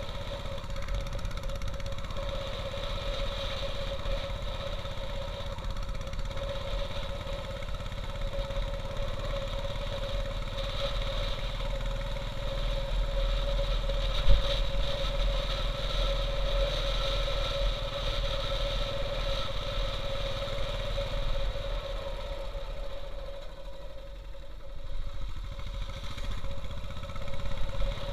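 Royal Enfield Bullet's single-cylinder engine running steadily as the motorcycle rides along a mountain road, heard from the rider's helmet. The engine eases off briefly about two-thirds of the way through, and there is a single sharp knock near the middle.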